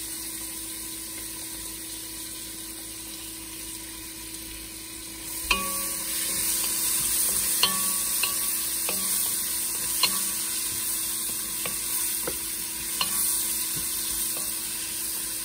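Sliced onions sizzling in hot ghee and oil in a stainless steel pot, stirred with a wooden spoon that knocks against the pot now and then. The sizzle grows louder about five seconds in.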